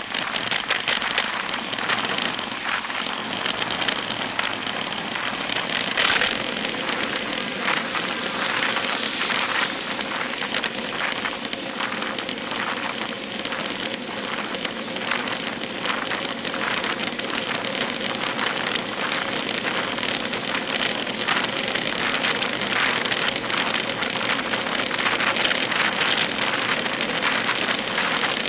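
Wind and road noise picked up by a bicycle's handlebar-mounted camera while riding: a steady rushing hiss crackling with many small irregular ticks from the tyre and bike on the road surface.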